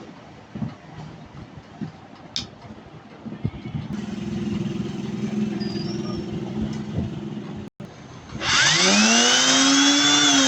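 Light handling clicks and a low hum, then, about two seconds before the end, an electric rotary drill's motor is switched on and spins up, its whine rising in pitch as it reaches speed: a test run of the repaired drill.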